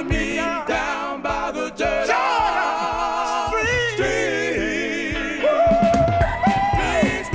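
A record playing a song: singing voices holding long, wavering notes over the backing music.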